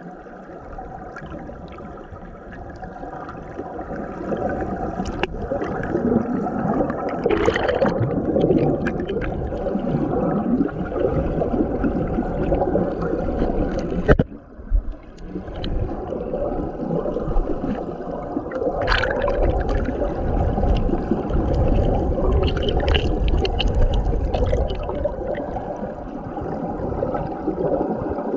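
Stream water rushing and gurgling, heard by a camera under or at the water's surface during stream snorkelling. Bubbly surges come about a quarter of the way in and again about two-thirds in, with a sharp knock and a brief drop about halfway.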